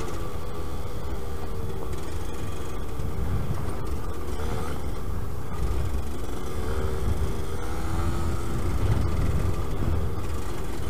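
Yamaha DT125 YPVS two-stroke single-cylinder engine running on the move, its note rising and falling a little as the throttle changes, over a steady low rumble of the ride.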